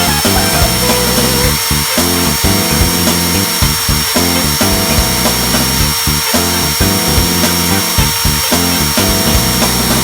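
Background music with a regular beat over the steady noise of a power drill boring a hole, with a thin high whine.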